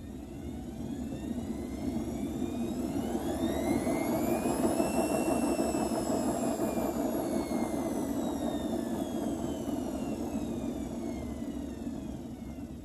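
Hotpoint washing machine's brushed universal motor, fed from a variac, speeding up with a rising whine over about five seconds, then slowing again as the whine falls. Under it runs a steady rumble from the machine, whose bearings are very bad.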